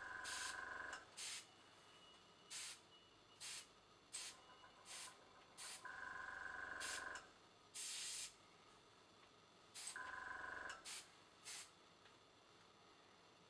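Short hisses from a dual-action airbrush as its trigger is pressed in quick dabs, about a dozen bursts of spraying. Three of the bursts, near the start, around six seconds in and around ten seconds in, last about a second and carry a steady humming whine from the small tankless compressor feeding it.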